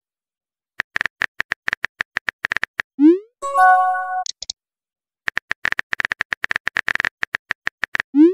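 Two runs of rapid phone-keyboard tap clicks as a text message is typed out, each run ending in a short rising pop as the message is sent. The first pop is followed by a brief chiming tone, and the second pop comes right at the end.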